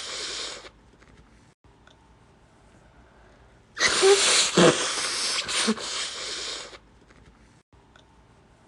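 A person blowing their nose: the end of one blow in the first second, then after a pause a single long blow of about three seconds with a few sharper spurts.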